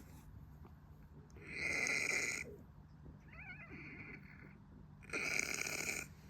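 A domestic cat snoring in its sleep: two loud snores on the in-breath, one about a second and a half in and one near the end, with a softer breath between them.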